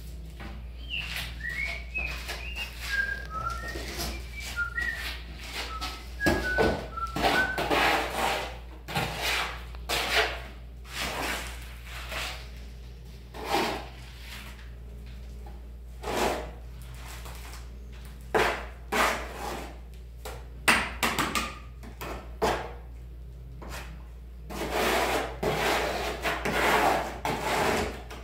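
A run of short whistled notes stepping down in pitch over the first few seconds, then repeated scraping strokes of a trowel working wet tile mortar out of a tub, scattered throughout and busiest near the end.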